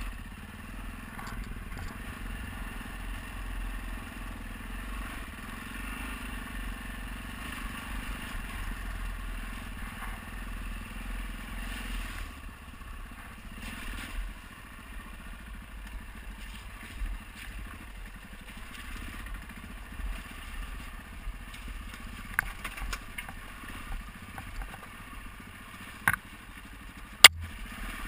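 Adventure motorcycle engine running at low speed on a rough dirt track, its note dropping about halfway through. A few sharp knocks come in the last few seconds, the loudest about a second before the end.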